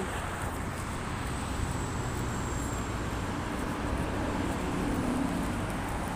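Steady road traffic noise from cars passing on a multi-lane road, with one vehicle's engine hum standing out for a couple of seconds in the middle.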